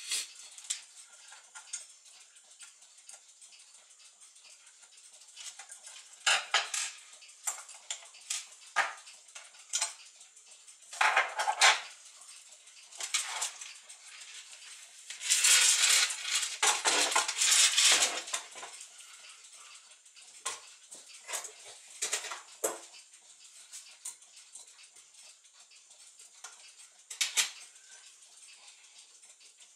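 Brass clock-movement parts clinking and scraping as they are handled on a table, in scattered short clicks, with a longer stretch of rattling and scraping about halfway through.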